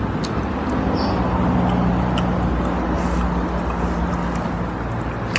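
Steady low hum of a running motor vehicle engine, its pitch shifting slightly about a second in, with a few faint clicks.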